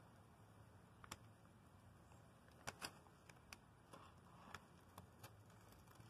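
Faint crackles of a masking stencil being peeled off freshly painted steel: one crackle about a second in, then a scattered run of sharp ticks over the next few seconds.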